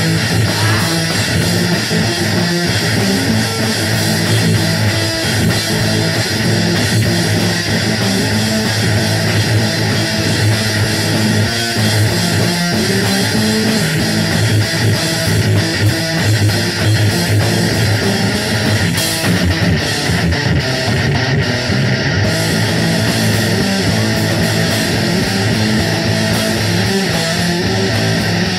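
A live heavy band playing loud doom-sludge music: distorted electric guitar and bass over drums and cymbals.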